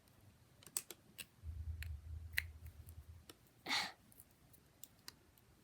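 Faint small clicks and scraping of nail clippers working at a plastic putty container, with a low handling rumble in the middle and a short breathy puff near the end.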